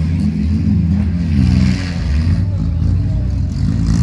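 Several demolition-derby cars' engines revving hard at once, their pitch rising and falling as they push against each other.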